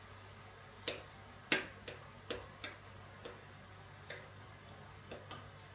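Kitchen work sounds: about nine light, irregular taps and clicks of utensils against a cutting board or pan, the sharpest about a second and a half in, over a low steady hum.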